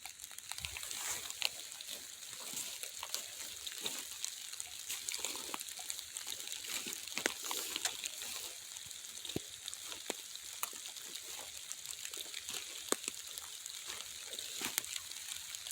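Hard, steady rain falling, a constant hiss with many sharp, irregular drop hits.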